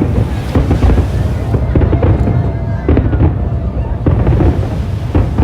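Aerial fireworks going off: a quick run of sharp bangs and booms over a continuous deep rumble.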